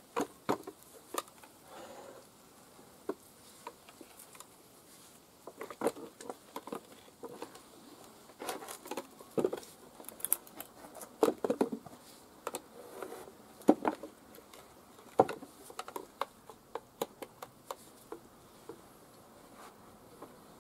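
Nissan SD22 diesel cylinder head being lifted and turned over by gloved hands, knocking and clunking irregularly against a wooden pallet, with two sharper knocks about fourteen and fifteen seconds in.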